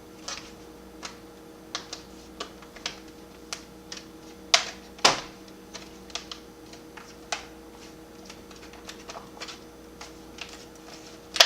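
Plastic bottom cover of an HP 255 G5 laptop being pressed around its edges, its retaining clips snapping into place in a string of irregular sharp clicks. The two loudest clicks come about halfway through.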